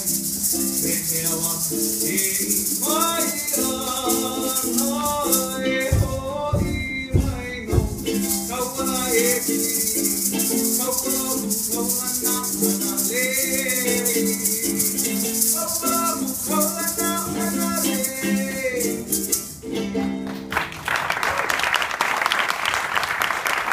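Live Hawaiian song: a voice singing over plucked strings and a steady shaker rhythm, with a few low thumps about six to eight seconds in. The music stops near the end and audience applause follows.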